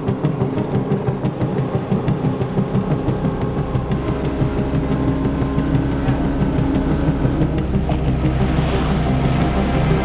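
Motor of a small open skiff running steadily under way, a low drone that settles in and fills out about three seconds in.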